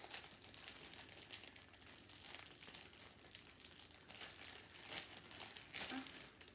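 Faint crackling and rustling of dry, crumbly sand slime being squeezed and pulled apart by hand, with a few sharper crackles near the end. The slime has dried out and is more crumbly than stretchy.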